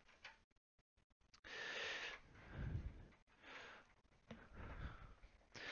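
A person's close-miked breathing: four soft breaths, with dead silence in the first second or so.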